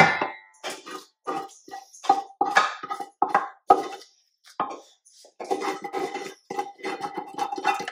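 Background music of plucked guitar notes, with a single knock a little before the middle.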